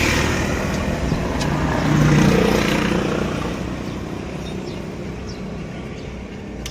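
A motor vehicle running close by, its sound swelling about two seconds in and then slowly fading away, with a few faint light clicks near the end.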